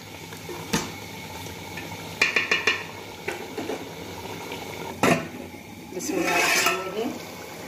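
A spoon knocking and clinking against an aluminium pot as chicken with tomatoes and yogurt is stirred, with a quick run of clinks about two seconds in. About five seconds in, the aluminium lid is set down on the pot with a sharp clank so the curry can cook covered.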